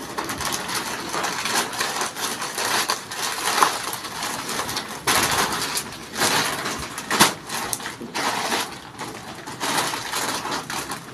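Black plastic mailer bag and plastic packaging rustling and crinkling as a child rummages in it and pulls things out, in uneven bursts with a few sharper crackles.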